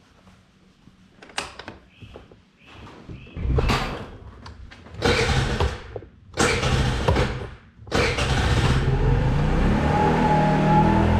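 Motor scooter engine starting: a few clicks, then the engine catches and is revved in several short surges before settling into a steady run.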